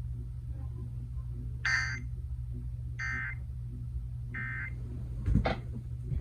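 Emergency Alert System SAME header: three short bursts of digital data tones, about a second and a half apart, broadcast over the radio to open a Required Monthly Test. A low steady hum runs underneath, with a brief knock near the end.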